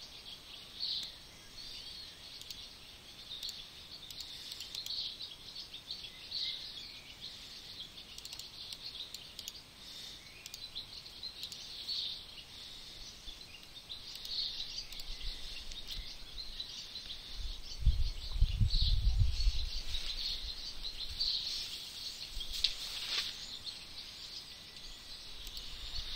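Faint background noise: a steady high hiss with soft, scattered high-pitched chirps, a low rumble about eighteen seconds in and a single click near the end.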